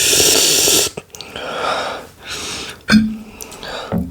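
A person breathing hard and noisily through the mouth: two long breaths, then a short, sudden voiced catch about three seconds in. It is the panting of someone whose mouth is burning from extremely spicy noodles.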